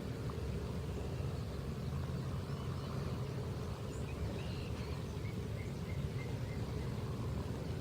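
Steady low outdoor rumble, with a few faint short bird chirps, a quick run of them about halfway through.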